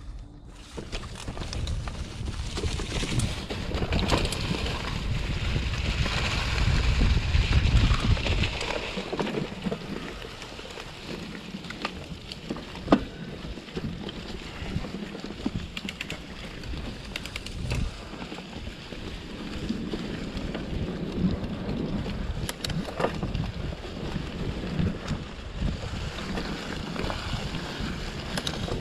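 Wind buffeting the microphone as a mountain bike rides along a trail, with a steady rushing hiss from the tyres rolling over dry fallen leaves. The rumble is heaviest in the first third, and occasional sharp clicks and rattles come from the bike over bumps.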